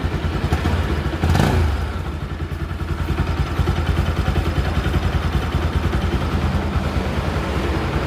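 Bajaj Pulsar NS200's liquid-cooled single-cylinder engine idling steadily with a fast, even pulse, with one brief blip of the throttle about a second and a half in. The engine is running just after a top-end rebuild with a new cylinder kit and refitted head, meant to cure an engine noise.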